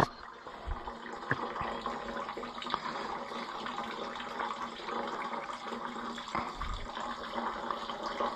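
Water draining from the tractor's cooling system and running steadily into a bucket, with a few light clicks and low thumps of work on the engine.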